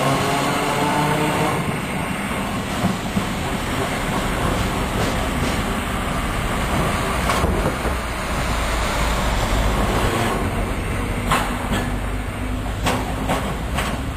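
Streetcar pulling away down its street track, with the whine of its electric traction motors climbing at the start. Its wheels click over rail joints several times near the end as it runs off.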